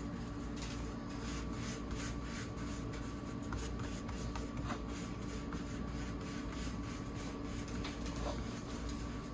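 Hands pressing, rubbing and stretching pizza dough on a floured countertop: soft, irregular rubbing and patting sounds over a steady background hum.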